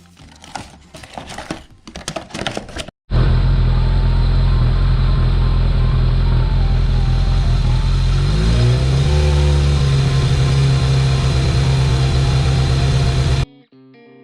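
Kawasaki ZRX1200R's inline-four engine running steadily at idle, its pitch rising a little about two-thirds of the way through and holding there. It starts and stops abruptly.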